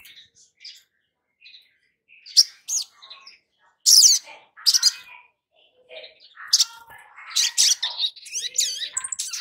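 Olive-backed sunbird calling: a few faint high chirps, then sharp, loud high notes, building into a rapid, busy twittering with gliding notes in the last few seconds.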